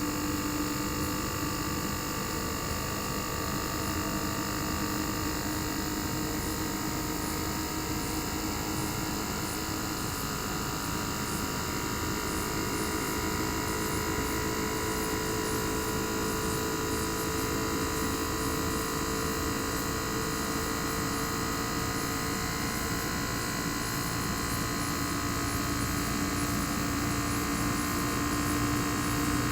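Panasonic CU-227CF outdoor unit's single-rotary inverter compressor running: a steady hum made of several whining tones, which drift slightly down in pitch through the middle and rise back up near the end as the inverter changes the compressor's speed.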